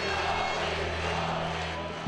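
Soundtrack music holding a steady low bass note under a dense wash of crowd noise, which thins out near the end.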